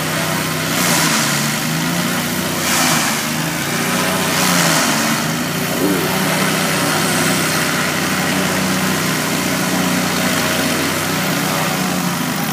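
Light aircraft piston engines idling steadily on the ground, with three brief swells of rushing noise in the first five seconds or so.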